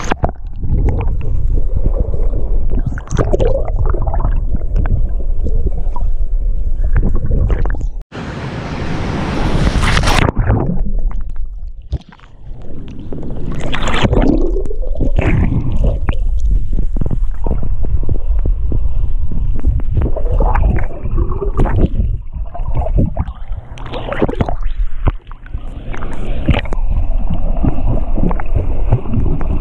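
River water heard from just below the surface: a muffled, continuous rushing and gurgling of water moving past the microphone. About a third of the way in, a brighter hissing splash lasts about two seconds.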